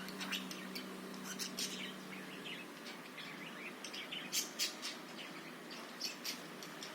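Budgerigars chirping: a rapid scatter of short, sharp chirps, with louder calls about four and a half seconds in and again near the end.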